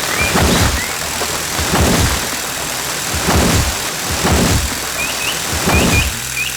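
Cartoon farm machinery running, with pairs of heavy thuds about every second and a half over a steady mechanical noise. Short rising high chirps sound near the start and again from about five seconds on.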